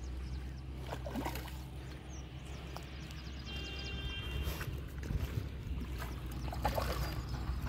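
A hooked fish splashing at the water's surface as it is drawn in to the bank, the splashes louder and more frequent in the second half, over a steady low rumble.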